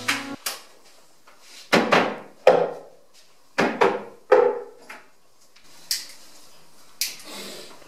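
Loud hand knocks and bangs on a wooden wall cabinet: about six sharp blows in two groups, each ringing briefly, then a few lighter taps near the end. Piano music cuts off just at the start.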